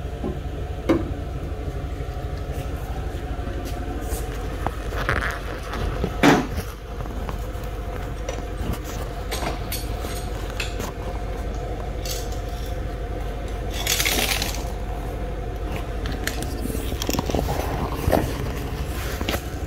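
Metal clinks, knocks and scrapes of paint cans and a cup being handled while paint is mixed, over a steady low hum. About 14 s in comes a short burst of hiss.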